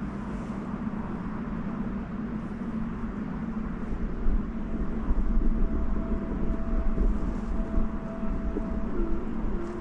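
Steady low rumble with a constant hum, and wind buffeting the microphone in gusts that grow stronger from about four seconds in.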